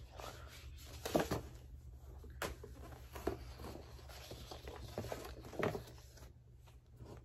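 Paper cross-stitch pattern leaflets rustling and shuffling as they are sorted and picked up by hand, with a crisp click about two and a half seconds in.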